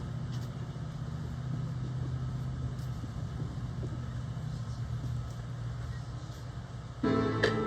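A steady low hum over faint background noise. Near the end a song's instrumental introduction starts suddenly, with sharp ticking strikes over sustained pitched notes.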